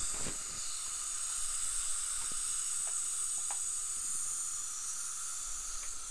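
Steady hiss from dental equipment, with a few faint clicks from instruments.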